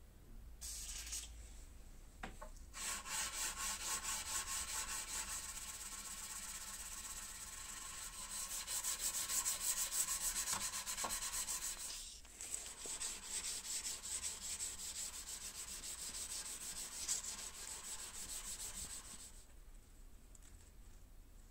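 240-grit sandpaper on a hand sanding block rubbing along a high-speed-steel knife blade in quick, even back-and-forth strokes. It pauses briefly about halfway and stops near the end.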